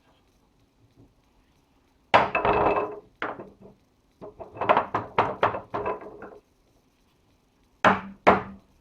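Hammer blows on a forged iron holdfast clamp in a workbench hole, the usual way a holdfast is set and knocked loose. One ringing strike comes about two seconds in, then a single blow, then a quick run of about eight blows, and two sharp strikes near the end.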